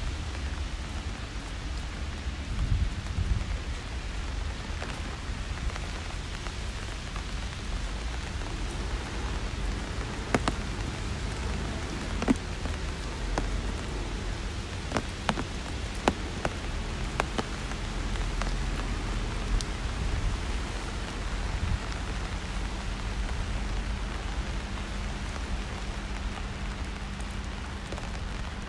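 Steady rain falling on a city street: an even hiss, with a scatter of sharp, close drip taps through the middle stretch over a low rumble.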